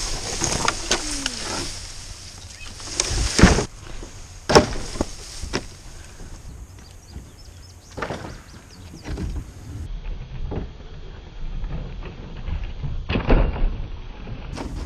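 Irregular knocks and bangs of old nailed wooden boards being pried and struck loose with a heavy pry bar. The sharpest impacts come about three and a half and four and a half seconds in, with more near the end.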